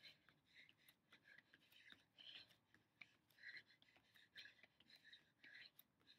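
Near silence, with faint scattered scratchy sounds and a few light ticks.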